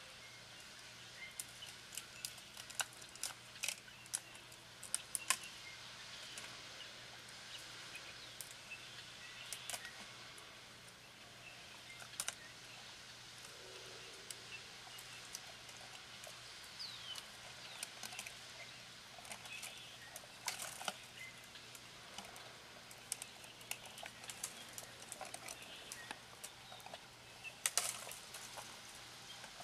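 Irregular sharp snaps and crackles of twigs and bark as an African elephant browses on a tree, breaking and chewing branches, over a faint steady background hiss. The loudest cracks come about five seconds in and again near the end.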